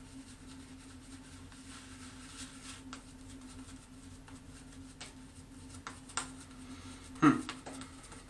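Badger shaving brush swishing and scratching softly as it works Barbasol shaving cream into a lather, over a steady low hum. A short grunt, falling in pitch, about seven seconds in.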